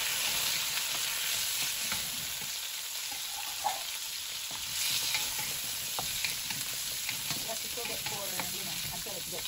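Cubed butternut squash sizzling in hot coconut oil and garlic in a wok, stirred with a wooden spatula that scrapes and taps against the pan. The sizzle swells briefly about five seconds in.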